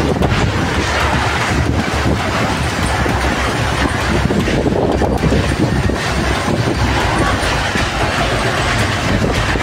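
Strong storm wind gusting, with rain, buffeting the microphone in a loud, steady rushing roar with a heavy low rumble.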